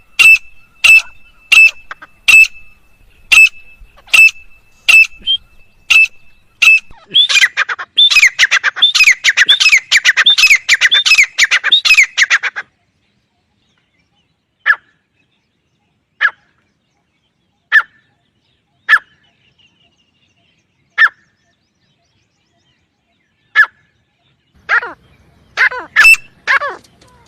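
Francolin (teetar) calling: sharp repeated calls about one a second that quicken into rapid, dense calling, then break off abruptly about halfway. Single calls follow every couple of seconds, and a fresh run of calls starts near the end.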